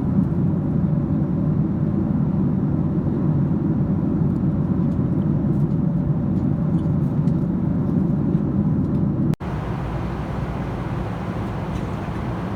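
Steady cabin noise inside a Boeing 767-300ER airliner, a low rumble. About nine seconds in it cuts out for an instant and comes back a little quieter and with more hiss.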